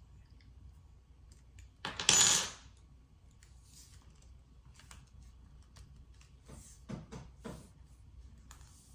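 Small metal Allen wrench dropped onto a wooden table, clattering briefly about two seconds in. Later a few soft clicks and knocks as a lightsaber hilt is handled.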